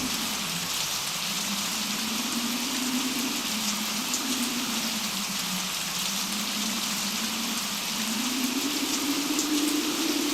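Steady heavy rain falling during a thunderstorm, with a faint low tone underneath that slowly wavers up and down in pitch.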